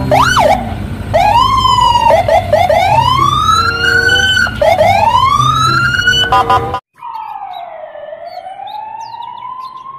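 Police car sirens, several overlapping, wailing and yelping with pitch sweeping up and down over a low rumble. About seven seconds in they cut off abruptly, and a single quieter siren follows with one slow wail that dips and then rises.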